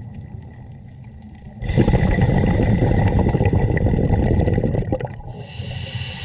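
Scuba diver breathing through a regulator underwater. There is a loud, bubbly, rumbling exhale from about two seconds in to about five seconds, then the start of a hissing inhale near the end.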